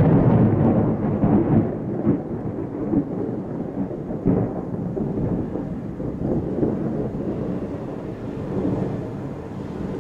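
Thunder from a lightning storm rumbling long and low, loudest at the start and slowly dying away, with a couple of sharper cracks along the way.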